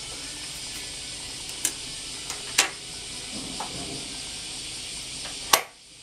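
Cicada chorus: a steady high, hiss-like drone of many insects, muffled through a closed glass door. A few sharp clicks cut across it, the loudest near the end as the door's lever handle is taken hold of.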